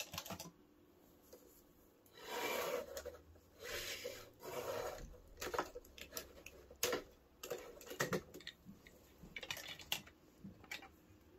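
Hard plastic parts of a Megazord toy clicking and scraping as they are handled and pulled apart, in irregular sharp clicks and a few short rustling bursts, the loudest about two to five seconds in.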